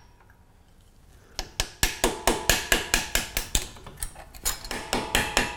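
Rapid metal-on-metal tapping, about four strikes a second, with a ringing tone underneath: a tool striking brake hardware. It starts about a second and a half in.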